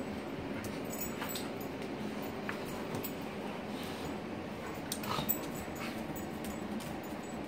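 Two dogs play-fighting on a tile floor: dog vocal sounds with scuffling and scattered short clicks, and one sharper sound about five seconds in.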